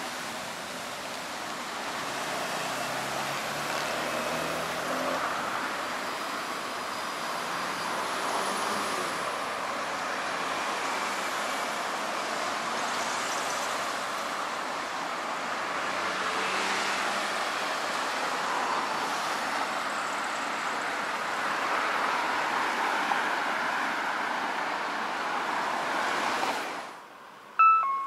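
Road traffic going by: a steady rushing of tyres and engines that swells and eases as vehicles pass, then cuts off abruptly near the end.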